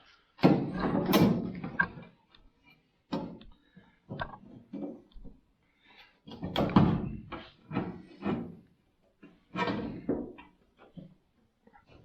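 Sheet metal being worked with hand tools: a string of irregular thunks and clattering knocks, loudest about half a second in and again around the middle.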